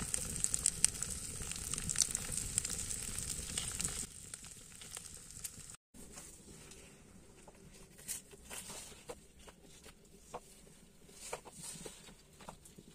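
Food sizzling as it fries in a pan: a dense crackling hiss for about four seconds, then only faint scattered crackles and ticks.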